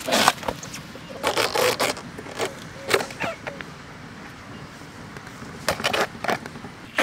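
Layers of a fresh banana trunk being handled and pulled apart: a series of short, moist scrapes and rubs on the fibrous sheaths, coming in separate bursts.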